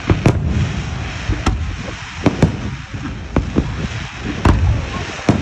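Aerial fireworks display: shells bursting in the sky with about nine sharp bangs at irregular intervals, over a steady noisy background between the bangs.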